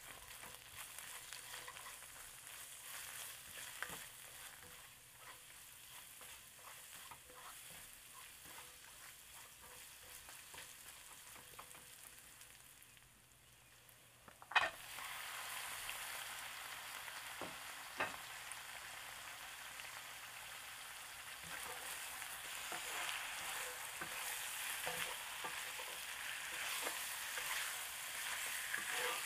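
Onions, garlic and ginger frying in a stainless steel wok, with a spatula clicking and scraping against the pan as it stirs. About halfway through, chunks of raw meat drop into the pan with a sharp hit, and the sizzle becomes louder and fuller as the meat sears.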